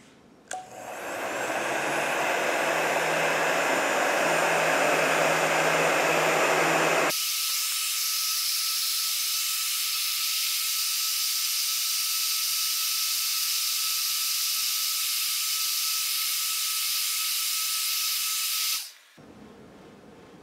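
A hand-held blow dryer is switched on, its fan spinning up with a rising whine and then blowing hot air in a steady loud rush. About seven seconds in, where the footage runs sped up, the rush abruptly turns thinner and higher with a steady whistle, and it cuts off near the end.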